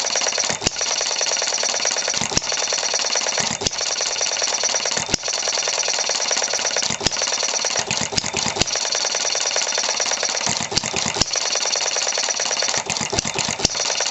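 Philip Duclos Odds n Ends model hit-and-miss engine running, flywheels spinning with a fast mechanical clatter. A sharp bang comes about every one and a half seconds as it fires, and it coasts on its flywheels between firings.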